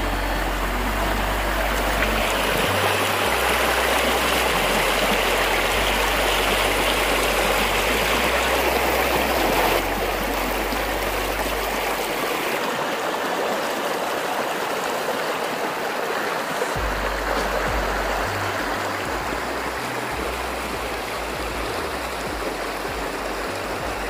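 Shallow rocky creek rushing steadily over stones and around fallen logs in white-water riffles. A low rumble comes and goes beneath it, dropping out for a few seconds after the middle.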